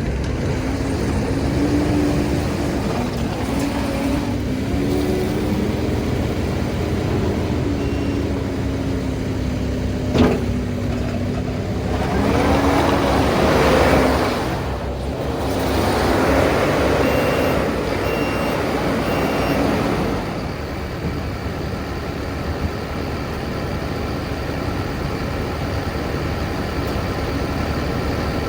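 Kubota SVL95-2S compact track loader's 87 hp diesel engine running, with a wavering tone over the first dozen seconds and a single sharp click about ten seconds in. Two louder surges follow in the middle before it settles to a steady idle for the last third.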